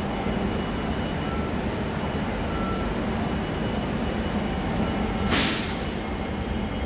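Metro train at a station platform: a steady rumble and hum, with a short hiss of released air about five seconds in.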